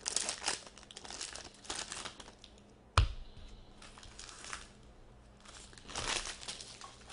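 Crinkling and tearing of a trading-card pack wrapper being ripped open and pulled off the cards. About three seconds in comes a single sharp knock, then softer rustling as the cards are handled.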